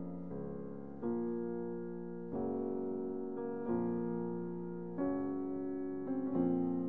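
Slow, gentle background piano music: sustained chords, a new one struck about every second and a half and left to fade.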